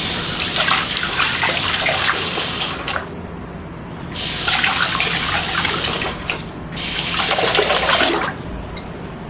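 Water from an automatic sensor faucet splashing over hands into a sink basin. It runs three times, cutting off briefly about three seconds in and again about six seconds in, as the hands move away from the spout and back.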